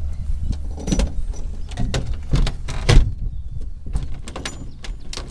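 Knocks and clicks from a Cessna 172 cabin door and its latch being handled: about half a dozen scattered taps over a steady low rumble.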